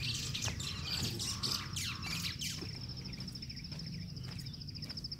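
Birds chirping and calling with quick sweeping notes over the first few seconds, over an insect's steady, rapidly pulsing high trill.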